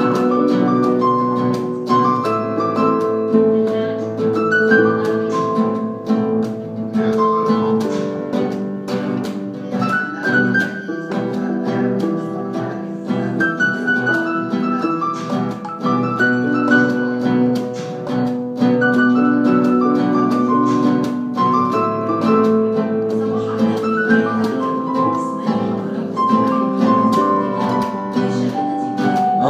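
Acoustic guitar and electronic keyboard playing an instrumental passage together, a melody of held notes over plucked strings.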